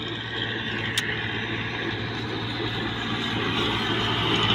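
A tractor's diesel engine running steadily as it drives along the road, growing louder toward the end. A single sharp click about a second in.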